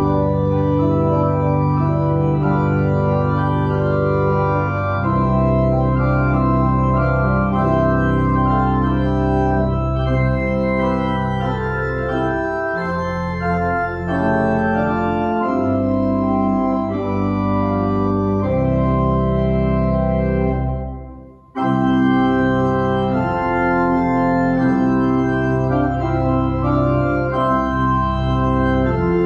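Church organ playing slow, sustained chords. The music fades out briefly about three-quarters of the way through and starts again suddenly.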